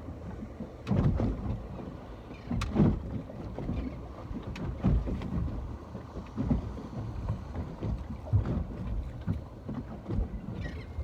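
Ocean water sloshing and lapping in irregular surges, with wind rumbling on the microphone and a few short sharp clicks.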